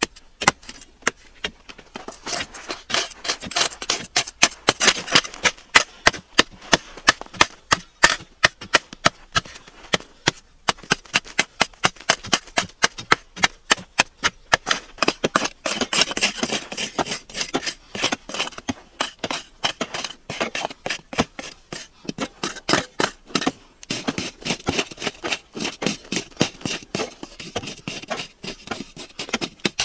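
A metal hand tool chopping and scraping into packed earth, shaving soil off a dirt bench in quick, sharp strokes, about two or three a second.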